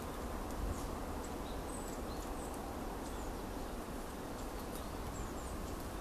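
A flock of small songbirds calling with scattered thin, high chips and short downward-sliding notes, over a steady low rumble.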